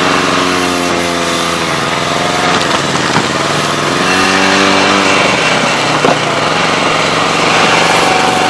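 Snowmobile engine running as it tows a loaded sled over snow, its pitch rising and falling as the speed changes, over a steady rushing noise. A sharp knock about six seconds in.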